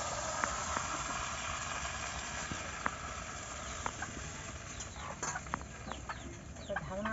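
Rice-and-coconut batter sizzling in a hot oiled iron kadai over a wood fire, a steady hiss with scattered pops that thins out after about five seconds. Near the end a hen clucks.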